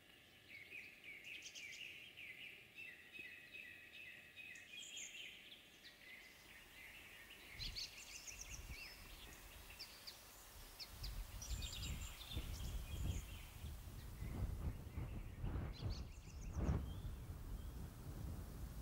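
Small songbirds chirping and trilling. From about halfway through, wind buffets the microphone as an uneven low rumble that grows stronger and swells in gusts near the end.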